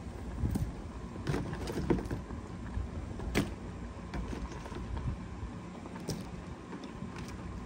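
Metal cooking pot being handled while shrimp go in: several sharp clicks and knocks, the loudest about three and a half seconds in, over a steady low rumble.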